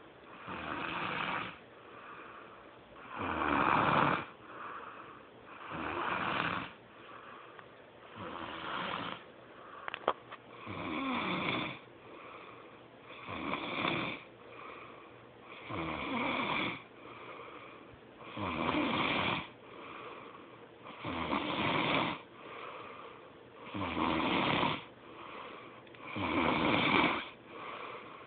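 A sleeping man snoring, with a loud snore about every two and a half seconds and softer breaths between them. A brief click comes about ten seconds in.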